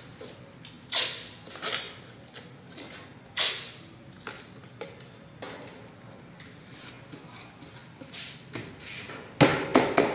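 Masking tape being pulled off the roll and torn into strips: a few short, hissy rips spaced a second or two apart. Near the end come several louder, sharper knocks and rattles.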